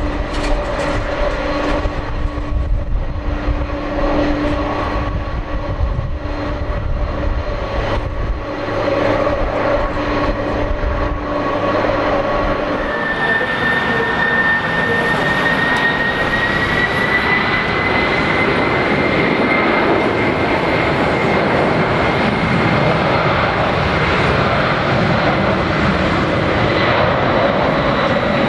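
Boeing 767-300ER's twin jet engines. For the first twelve seconds or so they run at low power with a steady hum and low rumble. Then a whine rises slowly in pitch and settles as the engines spool up to takeoff thrust and the jet starts its takeoff roll, the sound growing a little louder.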